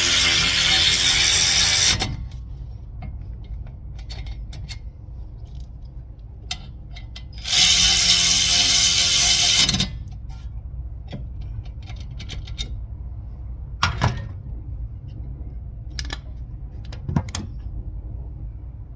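Power tool motor running in two bursts of about two seconds each, as used for fasteners during a brake rotor and pad job, with scattered clicks and knocks of tools being handled in between and afterwards.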